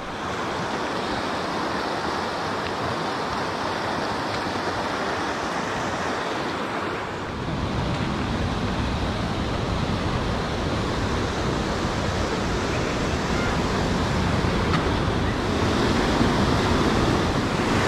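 Steady rush of a mountain creek and waterfall cascading over rocks. About seven seconds in, the sound grows louder and deeper as the falls come close.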